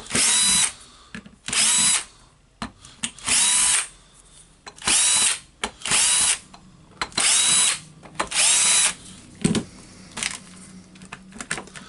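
Cordless drill/driver motor running in seven short bursts, each spinning up with a rising whine and stopping, as screws are backed out of a power tool's plastic housing.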